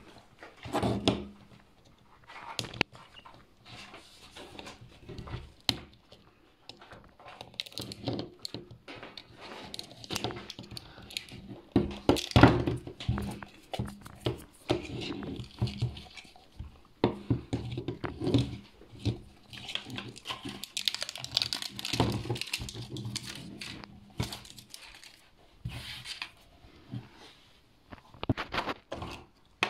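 A plastic slime tub being handled and unwrapped by hand: plastic crinkling and tearing, with many irregular knocks and taps of the tub and fingers on the tabletop.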